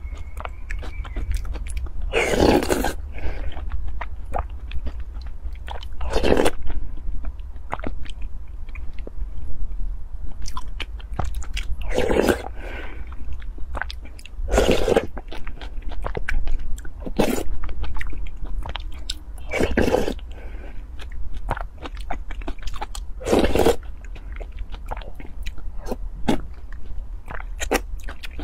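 Close-miked eating: a loud slurp from a wooden spoon of milky soup every few seconds, with soft chewing and wet mouth clicks between them. A steady low hum sits underneath.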